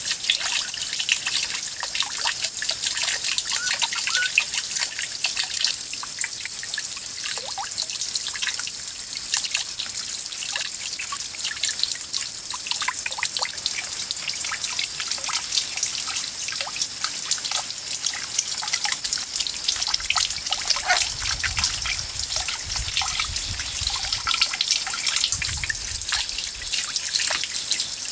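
Water trickling and dripping steadily, with many small drops ticking.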